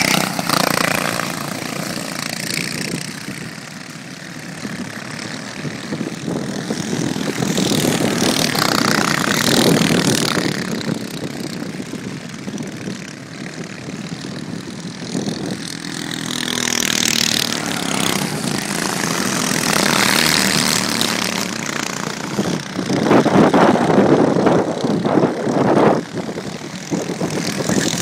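Racing kart engines passing on track, the sound swelling and fading as karts go by and come round again, loudest a few seconds before the end.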